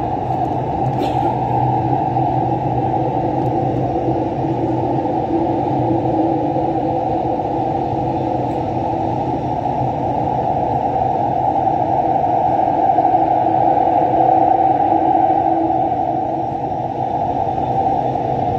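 Dubai Metro train running at speed through a tunnel, heard from inside the car: a steady rumble of wheels and motors that swells slightly about two-thirds of the way through.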